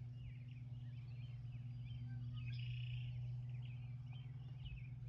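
Birds chirping faintly and repeatedly over a steady low hum.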